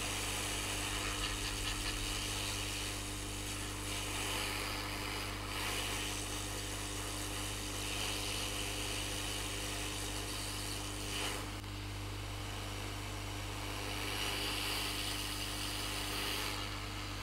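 Hot air rework station blowing steadily over a circuit board to reflow solder and burn flux: a constant airy hiss over a low electrical hum, swelling and easing slightly every few seconds.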